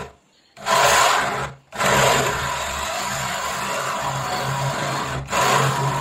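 Hand-held electric drill boring a 1-inch hole into the edge of a wooden door for the lock latch. The drill starts about half a second in, runs briefly and stops, then runs steadily through the wood from about two seconds in, with a brief dip near the end.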